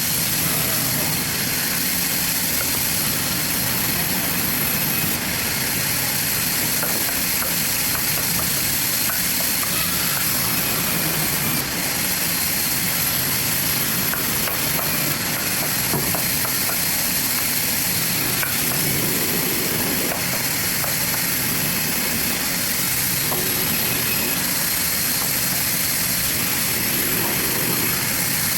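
Large sawmill bandsaw running through a log: a steady, loud hissing machine noise with a high whine.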